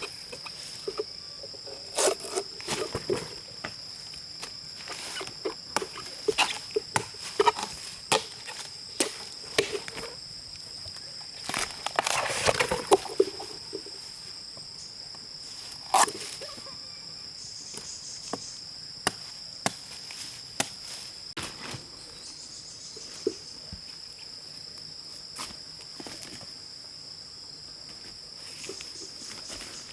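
Steady high-pitched insect drone, with scattered knocks and rustling of someone moving and handling things; a longer rustle about twelve seconds in.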